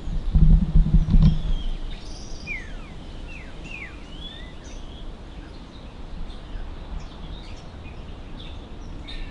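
Small birds chirping: several short calls, each sliding quickly downward in pitch, a few seconds in, with fainter chirps after, over a steady outdoor background. A low rumble fills the first second and a half.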